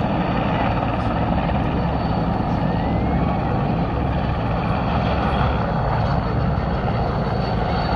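Two helicopters flying by in formation: a steady rotor and turbine engine noise.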